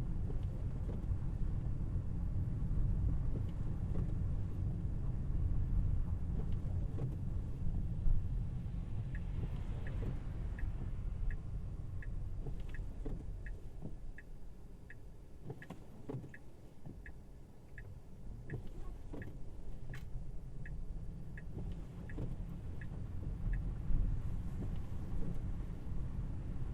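Low road and tyre rumble inside a Tesla Model Y's cabin on snowy roads. From about nine seconds in, a turn-signal indicator ticks evenly about one and a half times a second for some fourteen seconds, while the rumble eases for a few seconds in the middle.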